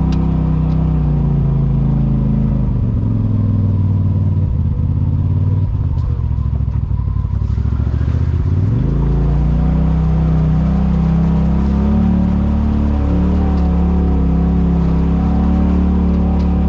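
Side-by-side UTV engine running along a trail. Its pitch eases off a few seconds in and drops low around eight seconds, then revs up sharply and holds steady.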